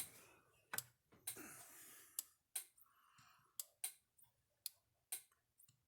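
Kencove EKD3 electric fence charger firing, a sharp click with each output pulse, about ten clicks at uneven spacing: the charger is pulsing and working on its 12-volt supply.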